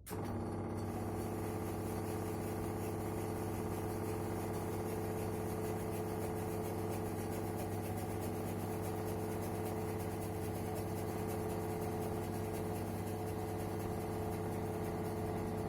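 Indesit automatic washing machine running with a steady, even hum that starts suddenly.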